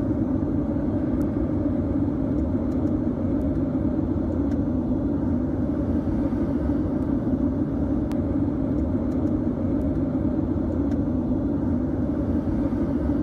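Steady in-flight cabin rumble of an Airbus A380, the drone of engines and rushing air heard through the cabin wall, while one engine runs with its fan and inlet cowling torn away.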